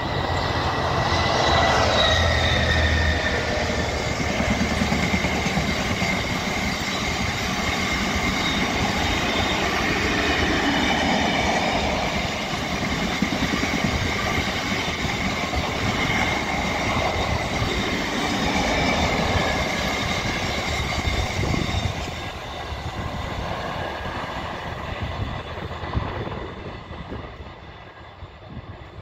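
A Freightliner freight train, Class 66 and Class 59 diesel locomotives with a long rake of stone wagons, passing at speed. A heavy diesel rumble comes with the locomotives at the start. Then the wagons give steady wheel-and-rail noise with a high squealing ring, which fades away over the last few seconds as the train recedes.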